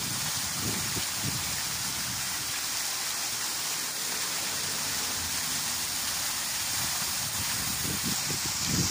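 Waterfall water rushing in a steady, even hiss, with low rumbles coming and going briefly at the start and near the end.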